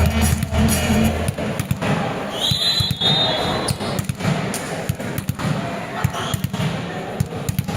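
Volleyballs bouncing on an indoor court floor: repeated irregular thuds with hall echo. Music fades in the first second, and a short high tone sounds about two and a half seconds in.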